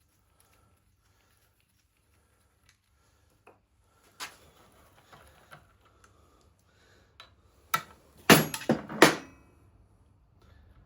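Metal tools clinking and knocking on the engine's metal parts while the camshaft is being freed: a light click about four seconds in, then four sharp metallic knocks in quick succession near the end.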